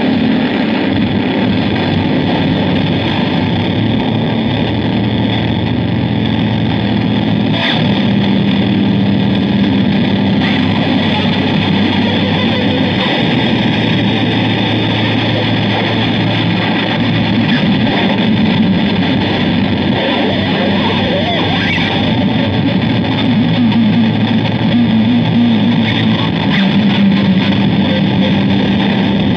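Ibanez GSR200 electric bass played through a Zoom G1Xon effects pedal, distorted into a dense, harsh drone of noise. Sustained low notes under it hold for several seconds at a time and then shift.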